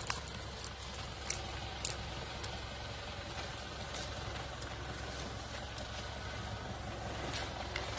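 Toyota Land Cruiser 4x4's engine running steadily at low revs off-road, with scattered short sharp clicks.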